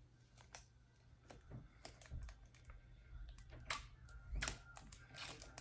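Scattered light clicks and taps of a hair-gel container and styling tools being handled while gel is taken out to slick hair back.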